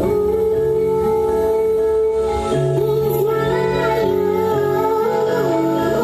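Loud music played over a large outdoor sound system: a melody line that slides and wavers in pitch, with singing, over a steady bass.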